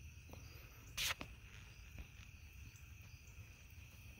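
Crickets chirping steadily at dusk, faint, over a low rumble, with one short burst of noise about a second in.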